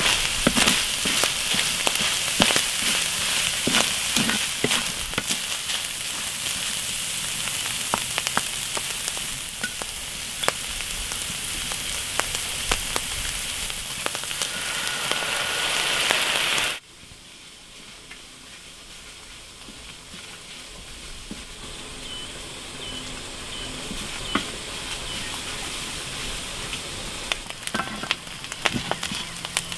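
Minced snail meat and herbs sizzling in a cast-iron wok, with scattered clicks. The sizzle is loud at first, drops off abruptly a little over halfway through, then carries on more quietly and slowly builds again.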